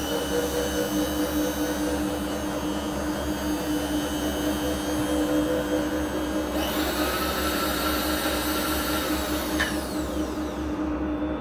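Align power feed motor driving the Bridgeport milling table along the X axis: a steady motor and gear whine. For about three seconds in the second half it speeds up to a much higher whine, then slows back down.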